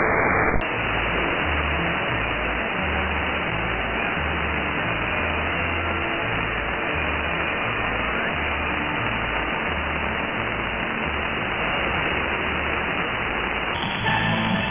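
Weak shortwave AM pirate signal on an Elad FDM-S2 receiver: mostly steady static hiss, with faint music whose bass notes barely show through the noise. Near the end it cuts to a stronger station with clearer music.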